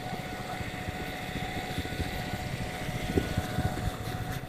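Street traffic with a low, steady rumble, as motor scooters ride past close by, and a faint steady high whine.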